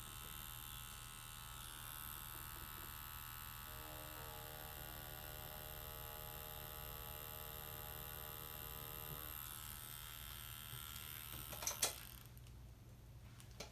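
Tattoo machine running with a steady electric buzz as it lines a design on synthetic practice skin. A lower tone joins for about five seconds in the middle, and the buzz stops with a couple of clicks about twelve seconds in.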